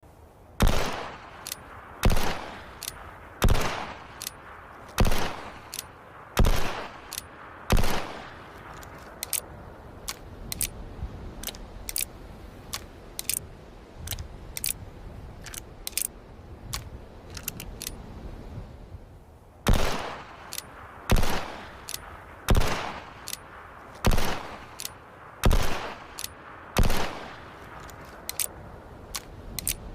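Single-action revolver fired six times, about a second and a half between shots, each report ringing briefly. Then a stretch of light metallic clicks, then another six shots, then more clicks.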